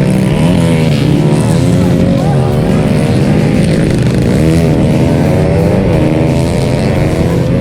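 Several old trail motorcycles' engines running together, their pitches rising and falling as the riders open and close the throttle.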